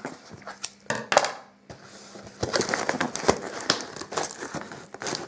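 Packing tape and cardboard of a heavily taped mailing box being cut with scissors and pulled open by hand: an irregular run of crackles, rips and crinkling, with a sharp loud rip about a second in.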